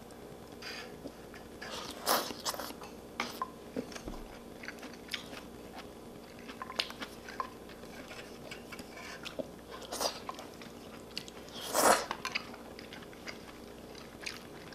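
A person chewing and slurping noodles from spicy seafood noodle soup: scattered small wet clicks and smacks of eating, with a few louder slurps about two seconds in and near the end.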